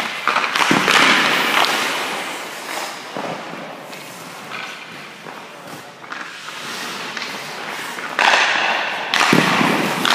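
Ice hockey shooting drill: sharp cracks of a stick striking pucks and pucks hitting goalie pads, echoing in the rink, with hissing scrapes of skate blades on the ice, a long scrape about eight seconds in.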